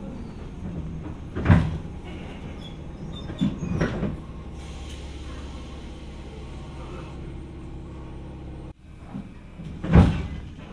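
Jomo Electric Railway 700 series (ex-Keio 3000 series) electric train standing at a station, its onboard equipment humming steadily. Three loud door-like thumps come about one and a half, four and ten seconds in. The sound drops out briefly just before the last thump.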